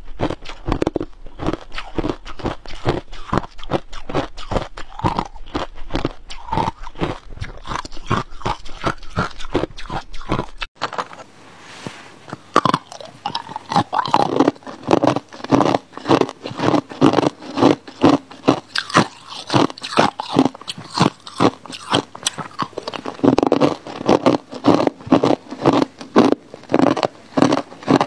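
Hard ice being bitten and crunched in the mouth at close range: a fast run of crisp crunches, several a second. A low hum under the first part stops about ten seconds in, and after that the crunching is brighter.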